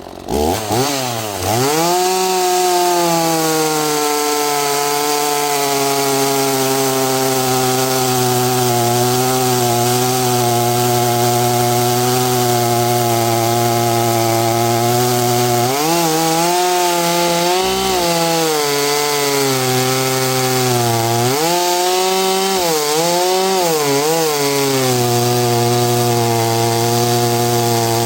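Two-stroke gas chainsaw throttled up from idle and held at high speed cutting through a log. Its pitch sags and recovers a few times in the second half as the chain loads and frees in the wood.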